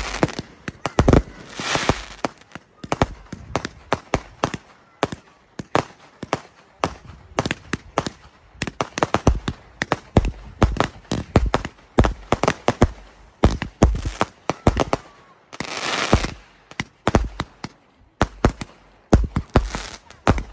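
Aerial fireworks exploding in quick, irregular succession: many sharp bangs and cracks overlapping one another. A few longer hissing spells stand out, the loudest about two thirds of the way through and another near the end.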